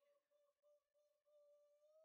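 Near silence, with only a very faint steady tone.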